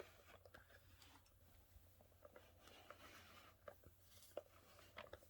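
Near silence with faint handling noises: soft rustling and a few light clicks as the plastic-and-fabric figure is turned over in the hands.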